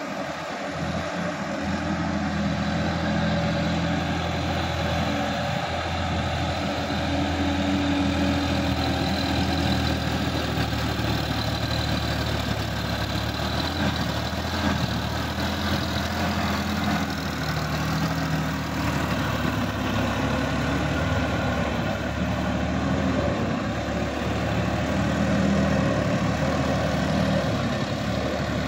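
Sonalika DI-50 RX Supreme tractor's diesel engine running steadily under load as it pulls a tillage implement through flooded paddy mud. The engine note wavers slightly up and down.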